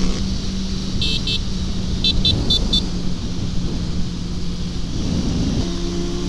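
Sport motorcycle engine running steadily at cruising speed, with wind rush on the helmet microphone. About a second in comes a run of short high-pitched beeps, two and then four more.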